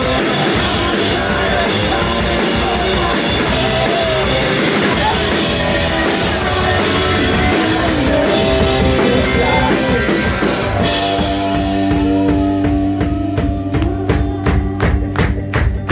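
Live rock band with drums, guitars and a singing voice playing at full volume. About eleven seconds in, the dense sound drops to a held chord over steady, evenly spaced drum hits.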